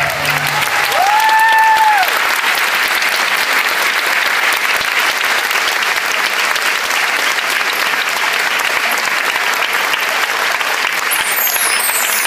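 Audience applauding steadily in a theatre hall, as the stage music's last note dies away in the first second. About a second in, one high held call rises over the clapping and fades.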